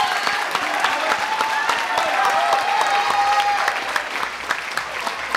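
Ringside spectators clapping, with many overlapping voices calling out.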